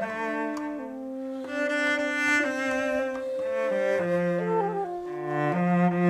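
Cello, xiao (end-blown bamboo flute) and Chinese zither playing slow music together: long sustained bowed cello notes under held higher notes that change pitch every second or so.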